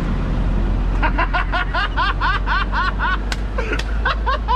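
A man laughing in a quick run of high-pitched "ha-ha" laughs, about five a second, starting about a second in. Under it runs the steady low rumble of the pickup he is riding in.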